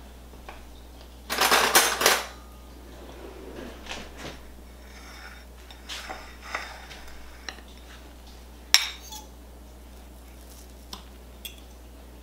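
A metal fork and a ceramic plate being handled on a stone countertop. A loud scrape lasting about a second comes about a second and a half in, followed by scattered light clinks and taps as the fork cuts into a slice of cheesecake on the plate; the sharpest click comes just before nine seconds.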